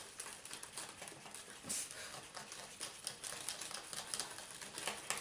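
Small plastic pieces and wrappers of a DIY candy kit being handled: light, irregular clicking and crinkling.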